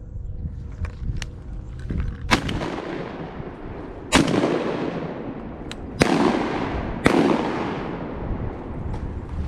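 Four shotgun blasts at ducks, the first about two seconds in and the rest spaced a second or two apart, each followed by a long fading echo.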